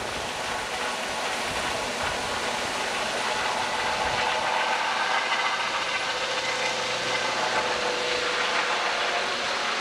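Eurocopter H135 helicopter flying overhead, a steady rushing noise of its rotors and turbines with faint whining tones.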